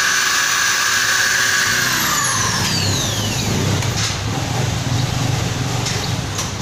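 Corded electric hand drill running steadily while drilling a metal workpiece clamped in a vise, then released about two seconds in, its motor whine falling in pitch as it spins down. After that a low hum remains with a few light metallic clicks as the part is handled.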